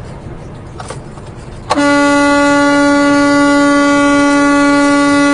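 Semi truck's horn sounded in one long, steady blast, starting about a second and a half in, over the cab's road noise.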